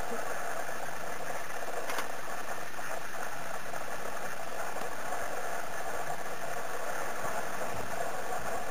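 A steady mechanical hum with a short click about two seconds in.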